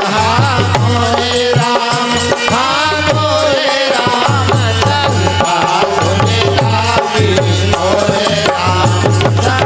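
Instrumental interlude of a devotional bhajan: a hand drum keeps a steady repeating beat under a melody line with sliding pitches.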